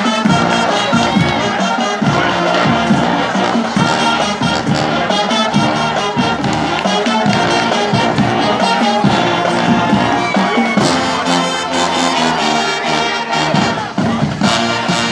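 Marching band playing brass and drums together: massed brass instruments carry the tune over a steady drum beat, with crowd noise beneath.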